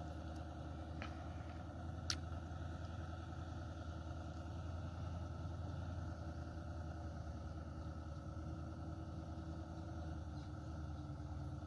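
Loaded Mitsubishi Fuso truck's diesel engine running steadily under load, a low, even drone, with one short click about two seconds in.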